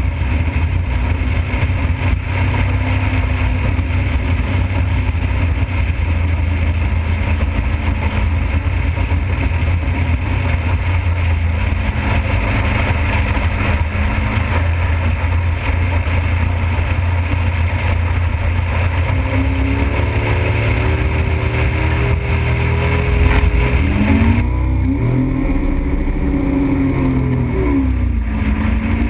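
Motorboat running at speed: a steady low engine drone under a continuous rush of wind and water. In the last several seconds the engine note rises and falls.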